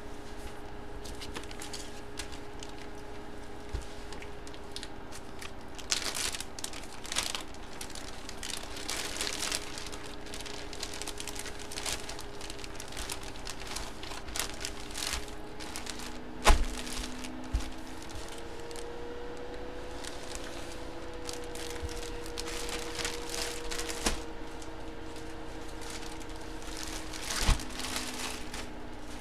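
Plastic card packaging and sleeves being handled: intermittent crinkling and rustling, with a few light knocks, the loudest about halfway through.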